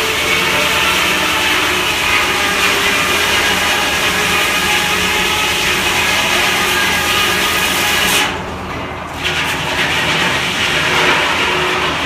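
Belt-driven sawmill saw, powered by a steam traction engine, cutting through a log with a loud steady rasping whine. About eight seconds in the cutting noise drops away suddenly, then comes back for a few seconds.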